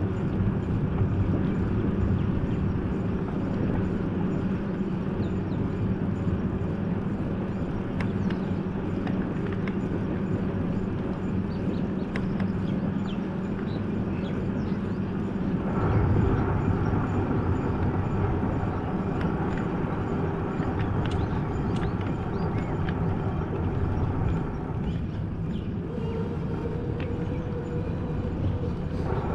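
A vehicle running along a road: steady engine and road noise. The sound changes character about halfway through, and a steady higher hum joins near the end.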